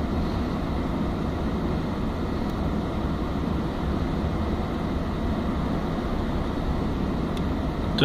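Car's cabin blower fan running at full speed, pushing warm air out of the dashboard vent as a steady, even rush with a low rumble underneath.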